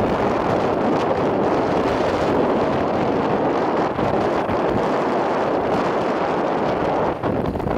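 Steady rush of wind buffeting the microphone, mixed with the road noise of a moving vehicle; no distinct engine note or other event stands out.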